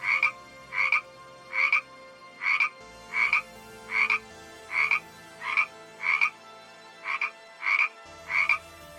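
A frog croaking over and over in short, evenly spaced calls, about one and a half croaks a second.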